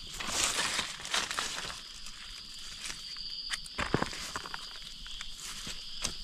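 Footsteps and rustling on the forest floor, a scattering of short clicks and crunches, over a steady high-pitched insect drone.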